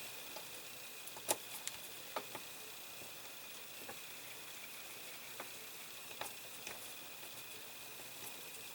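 Faint, scattered small clicks and taps from small die-cast model parts and a screwdriver being handled and pressed against a hard work surface, over a steady low hiss.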